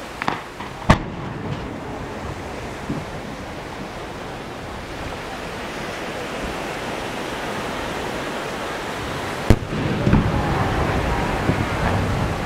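A single two-shaku (about 60 cm) firework shell: a sharp launch report about a second in, then a long wait over a steady wash of noise. About nine and a half seconds in comes one loud, sharp boom as the shell bursts, followed by a low rumbling echo.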